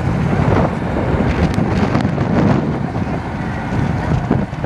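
Wind buffeting the microphone, a loud, uneven rumble with no clear pitch.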